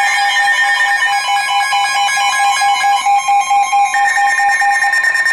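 Electronic emergency alert tones between two broadcast messages: steady beeping tones that pulse rapidly, with a higher steady tone joining about four seconds in.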